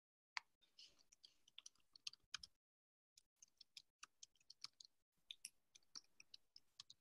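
Faint, irregular clicking of a computer keyboard being typed on, a few keystrokes a second.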